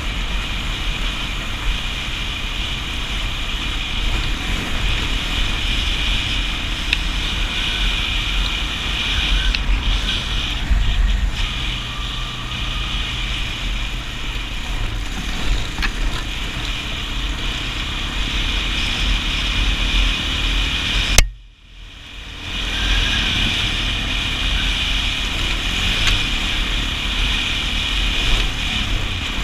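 Kawasaki KFX400 ATV's single-cylinder four-stroke engine running steadily under way on a dirt trail, with rumble from the ride on the microphone. About two-thirds through, a sharp click is followed by a brief dropout of about a second before the running noise returns.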